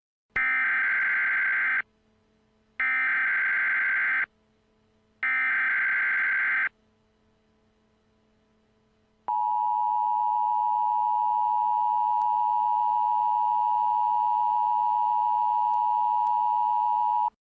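Emergency Alert System-style broadcast tones: three harsh, buzzing digital data bursts of about a second and a half each, a second apart. About nine seconds in they give way to the steady two-tone EAS attention signal, which holds for about eight seconds.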